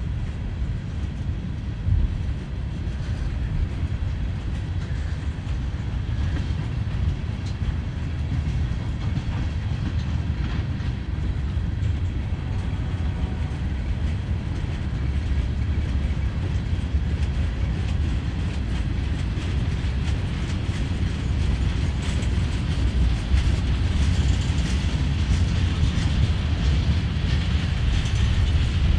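Freight train cars rolling past, gondolas and then steel coil cars: a steady low rumble of steel wheels on rail with light clicking over the rail joints, getting a little louder in the last few seconds.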